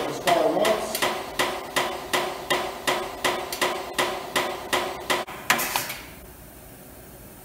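Newly mounted car tire being inflated on a tire changer: a steady whistle of air through the valve stem under a rhythmic clacking about two and a half times a second. A short hiss comes about five and a half seconds in, then the air stops, with the tire at about 35 PSI.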